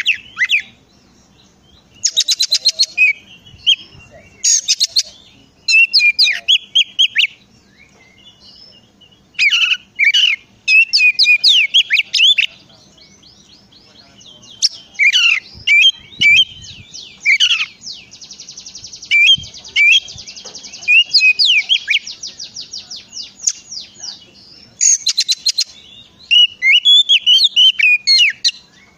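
Oriental magpie-robin (kacer) singing in repeated bouts of varied song: fast runs of repeated notes mixed with slurred whistles, with a long rapid rattle about two-thirds of the way through.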